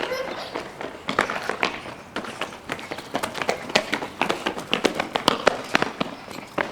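Children playing: quick, irregular footfalls and knocks of children running about, with faint voices beneath.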